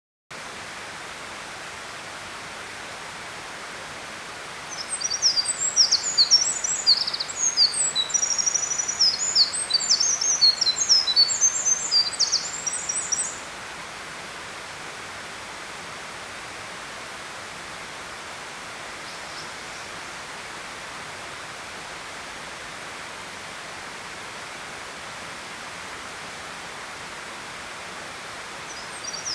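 A small songbird sings one long, fast, tumbling song of high twitters and trills lasting about nine seconds, starting about five seconds in, with another song beginning right at the end. Underneath runs a steady rushing noise, like a flowing stream.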